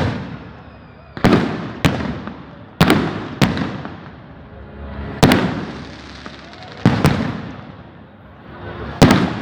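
Firecrackers going off one after another, about eight sharp bangs at uneven intervals. Each bang trails off in a long echo.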